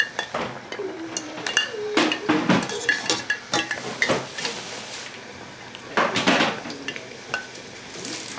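Kitchen clatter: dishes, pots and utensils clinking and knocking irregularly, some strikes ringing briefly.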